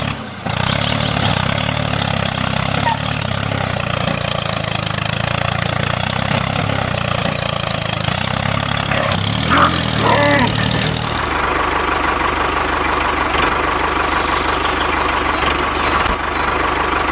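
Tractor engine running steadily at an even pace. About ten seconds in, a short rising-and-falling voice-like call sounds over it. Soon after, the engine sound changes, with a steady higher tone joining a fine, fast pulsing.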